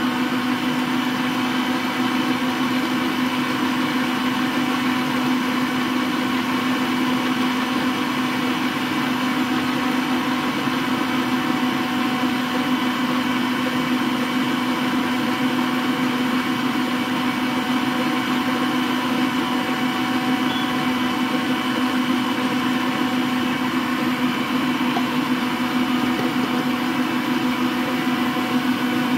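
Frigidaire electric stand mixer running steadily at a constant speed, beating batter in its stainless steel bowl. A level motor whine with a strong low hum.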